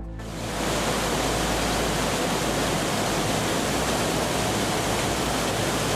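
Floodwater rushing: a loud, even roar of pouring water that sets in abruptly and cuts off about six seconds later.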